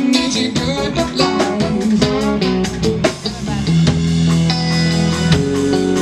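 Live band playing an instrumental passage: electric guitar over a drum kit keeping a steady beat, with a trombone holding long notes.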